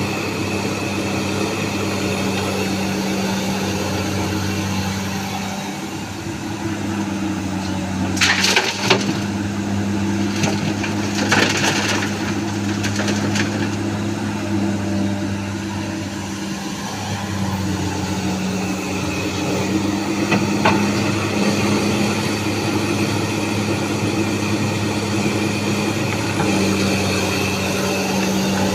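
Komatsu excavator's diesel engine running steadily under load, with two bursts of crunching, cracking rock as the bucket works the sandstone, the first about eight seconds in and a longer one a few seconds later.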